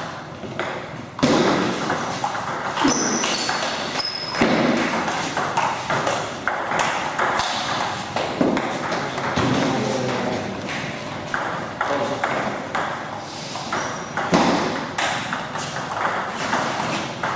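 Table tennis ball clicking off bats and the table, many sharp hits in quick irregular succession.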